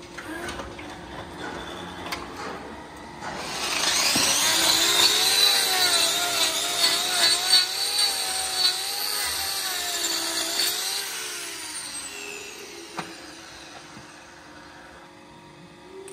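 Hand-held angle grinder with a hoof-trimming disc cutting into a cow's hoof. It starts about three seconds in, its pitch wavering as it bites into the horn, and spins down around eleven seconds in.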